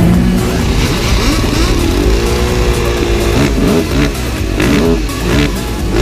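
Husaberg FE 550 supermoto's single-cylinder four-stroke engine under way, its revs climbing and holding for about a second, then rising and falling several times in quick succession.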